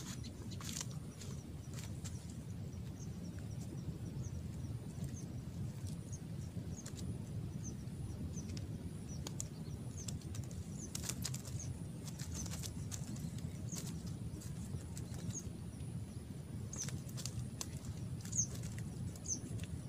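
Open-air ambience: a steady low rumble, with small birds chirping in short high notes again and again and a few faint clicks.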